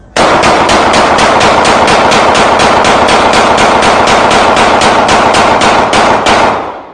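Rapid automatic gunfire, about four shots a second in one long, loud string that starts abruptly and stops near the end.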